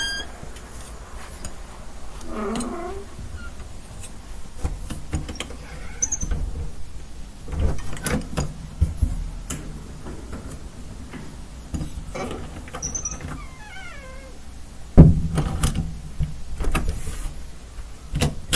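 A door being handled and shut: hinges creaking in wavering and falling squeals, several sharp clicks and knocks, and one heavy thud about fifteen seconds in, the loudest sound, as the door closes.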